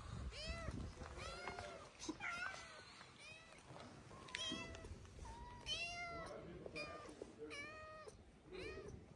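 Cats meowing over and over, roughly one short meow a second, some calls higher-pitched than others.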